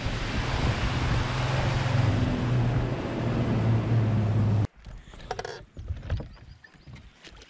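Bass boat running under outboard power: a steady low engine hum under heavy wind rush on the microphone. It stops abruptly a little over halfway, leaving quiet with a few faint clicks.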